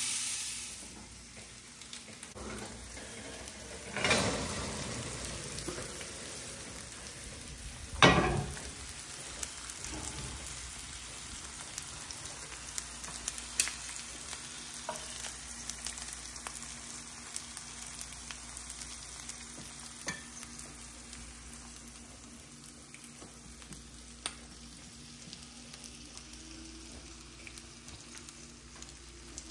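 Lamb chops sizzling and crackling in a cast-iron grill pan. A louder hiss drops away within the first second, and there are two loud knocks about four and eight seconds in.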